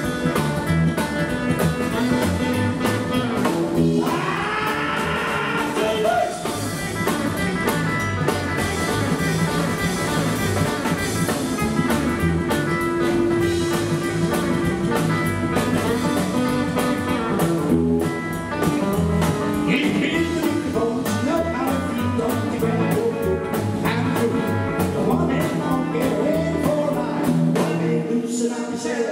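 Live rockabilly band playing: electric lead guitar, double bass, acoustic guitar and drum kit over a steady beat.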